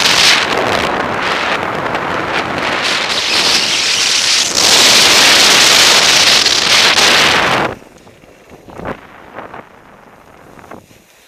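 Wind rushing over an action camera's microphone as a skier speeds downhill, growing loudest and then cutting off suddenly about eight seconds in as the skier falls and comes to a stop in the snow. A few faint knocks and rustles follow.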